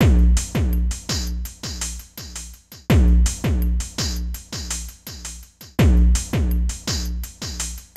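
Electronic music with a drum-machine beat: deep kick drums that drop in pitch, about two a second, with high ticking hi-hats. The pattern comes round again about every three seconds.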